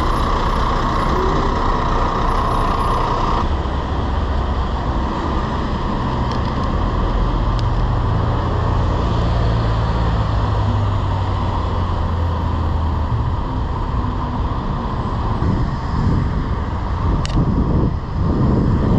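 Busy road traffic heard from a bicycle, with a large vehicle's engine rumbling close by through the middle and a steady high hum that cuts off about three and a half seconds in.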